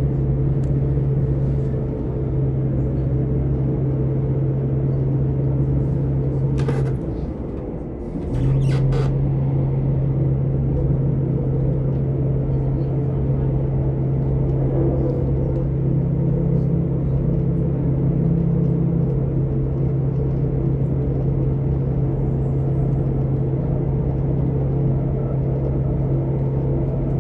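British Rail Class 158 Sprinter diesel multiple unit heard from inside the carriage at speed: a steady diesel engine drone over rumbling running noise. About seven seconds in, the drone briefly drops away with a couple of sharp clicks, then comes back.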